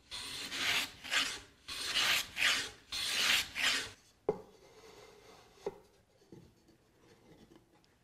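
Hand plane shaving the edge of a mahogany board in quick strokes, about seven swipes in the first four seconds, to ease a tight fit. Then two sharp wooden knocks as the board is set against the box opening to test the fit.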